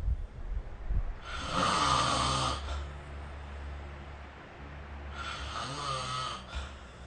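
A sleeping person snoring: two long snoring breaths, each about a second and a half, roughly four seconds apart.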